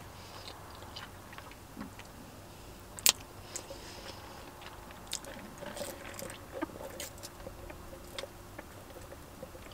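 Quiet close-up mouth sounds of eating and drinking: chewing, swallowing and sips through a straw from a paper cup. Small scattered clicks throughout, with one sharper click about three seconds in.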